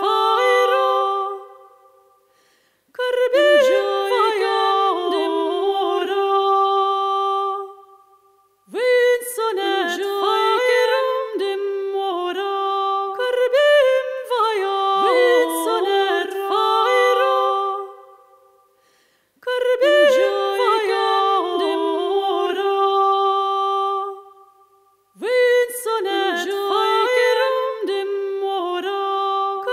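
Unaccompanied singing of an Occitan song, in long sustained phrases broken by four short pauses.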